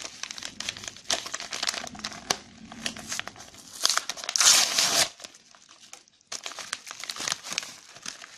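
Shipping package being opened by hand: packaging crinkling and crackling, with a loud tearing sound about four seconds in that lasts about a second.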